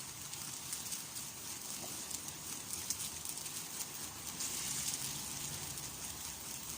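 Fire crackling: a steady hiss with many small, quick crackles.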